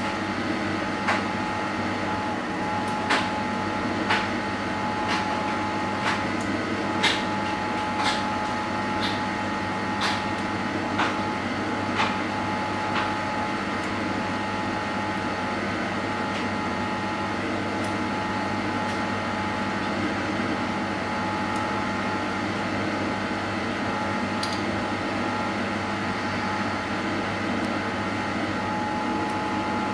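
Bosch SGS3042GB dishwasher running its Intensive 65 wash, a steady, very noisy hum with a held whine, mixed with a tumble dryer running. Light ticks come about once a second for roughly the first half, then stop.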